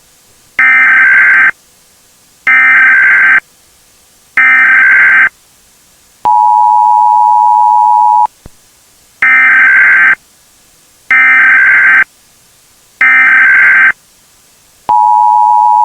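Emergency Alert System SAME header tones: three short data bursts about a second each, then the two-tone attention signal held for about two seconds. Three more data bursts follow, and the two-tone attention signal starts again near the end.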